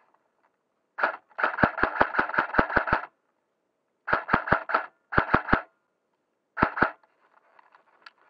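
Rapid shots fired in bursts: a run of about ten quick shots, then a burst of four, one of three and a last pair.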